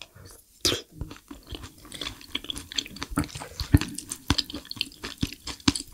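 Close-miked wet chewing of a mouthful of chewy noodles in spicy mapo tofu sauce: a dense run of small sharp mouth smacks and clicks, starting just as the bite goes in.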